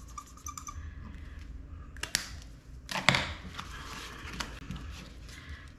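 Paper handling at a desk: rustling and sharp clicks, with a marker squeaking on a paper chart as squares are colored in. The loudest handling noises come about two and three seconds in.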